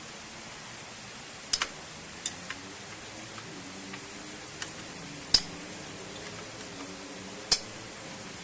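Sharp clicks and clinks of metal tools or parts being handled during a scooter CVT service, five or six separate strikes over a steady hiss, the loudest two in the second half.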